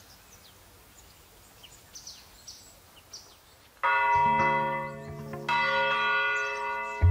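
Church bell in its tower, swung by hand, striking twice, about four seconds in and again a second and a half later, each stroke ringing on.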